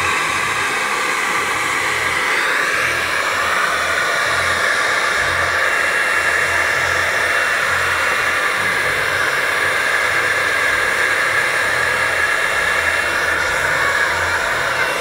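Corded electric leaf blower running steadily, blowing air into an inflatable water walking ball to inflate it.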